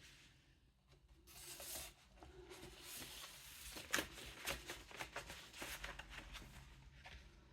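Faint handling noises of a vinyl box set being unpacked: a brief rustle of paper and cardboard sleeves, then scattered light taps and clicks.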